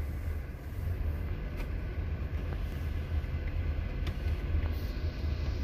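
Steady low rumble of a Range Rover Velar driving slowly, its engine and road noise heard from inside the cabin, with a couple of faint clicks.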